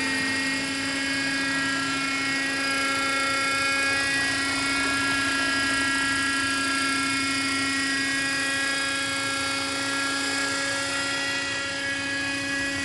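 Radio-controlled model helicopter in flight, its motor and rotor giving a steady high whine that drifts only slightly in pitch.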